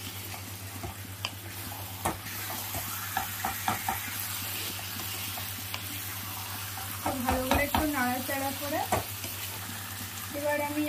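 Chicken pieces sizzling as they fry in masala in a black kadai, while a flat spatula stirs and scrapes the pan with scattered knocks against the metal. A person's voice is heard briefly about seven seconds in.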